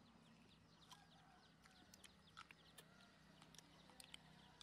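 Near silence: faint outdoor background with scattered short bird chirps, a few soft clicks and a faint steady low hum.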